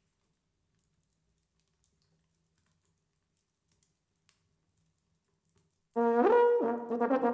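Near silence with a few faint clicks, then about six seconds in, a quartet of euphoniums enters together loudly, sustained chords with a brief rising line.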